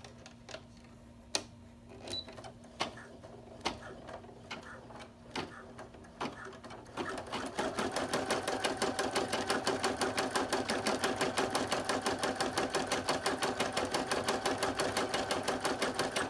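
Computerised embroidery machine stitching an appliqué detail. A few faint clicks come first; about seven seconds in the machine starts sewing, the needle going at a rapid, even rhythm.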